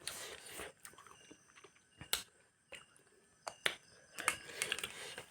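Eating noises close to the microphone: scattered sharp clicks and short soft rustling, with the loudest click about two seconds in.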